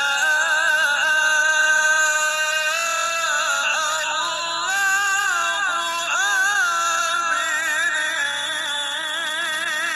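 A man reciting the Quran in a slow, melodic style, drawing out long notes with a wavering, ornamented pitch and a few quick runs in the middle.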